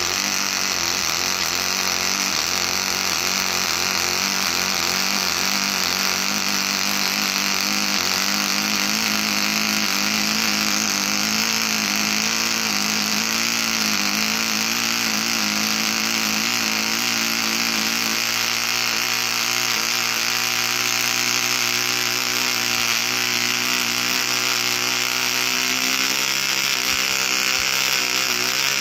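De-stroked Cox .047 hybrid two-stroke glow engine with a Testors crankshaft, running steadily at high speed with an even, high-pitched buzz.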